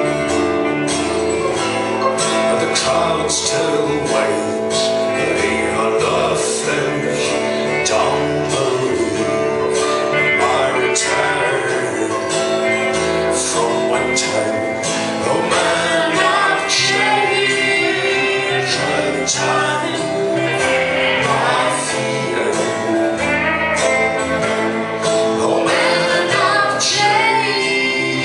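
Live band music with several voices singing together over the instruments and a steady beat.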